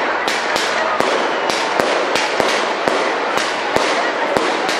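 Castillo fireworks burning: sharp firecracker bangs about three a second over a continuous hiss and crackle.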